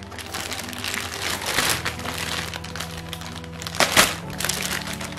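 Clear plastic bag crinkling and rustling as it is torn open and pulled around the packed unit, with a sharp crack about four seconds in. Background music plays underneath.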